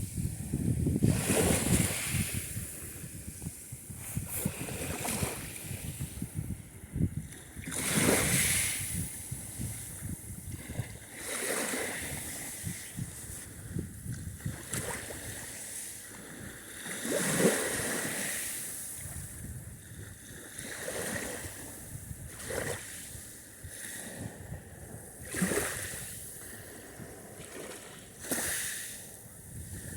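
Sea surf: waves washing in and splashing, a new surge every few seconds over a steady hiss of water.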